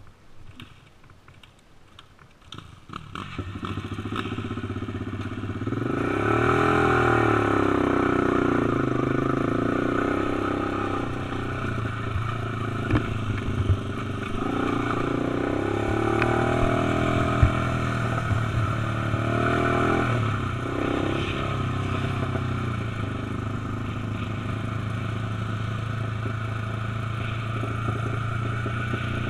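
Quad (ATV) engine running under the rider, picking up about three seconds in, then revving up and down several times as it accelerates before settling into a steadier run; a few sharp ticks along the way.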